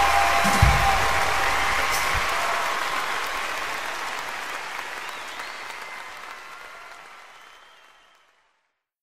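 Audience applause at the end of a live song recording, fading out steadily over about eight seconds; the music's last low notes stop under it within the first second.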